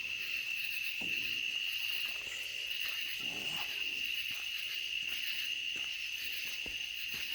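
Chorus of night insects such as crickets, a steady high-pitched trill that goes on without a break.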